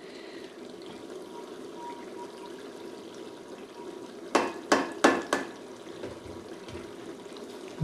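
Chicken handi gravy simmering in a pan, a faint steady bubbling, with about four quick knocks against the pan a little past halfway.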